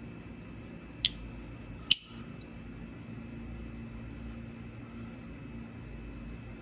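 Two sharp clicks about a second apart from a stag-handled slip-joint pocket knife being handled, typical of its blade snapping into place, over a steady low room hum.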